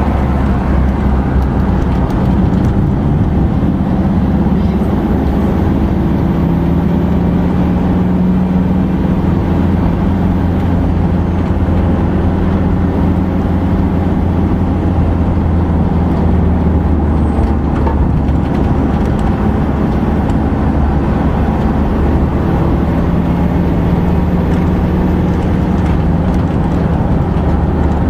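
Camper van driving at road speed, heard from inside the cab: a steady drone of engine hum and tyre noise.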